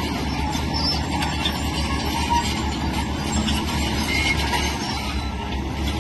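Heavy tracked earthmoving machinery working: a diesel engine running steadily under load, with a continuous metallic clatter and rattle of steel crawler tracks and the workings.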